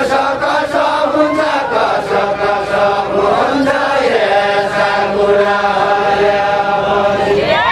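Group of men singing a deuda verse together in a drawn-out, chant-like unison, holding long notes.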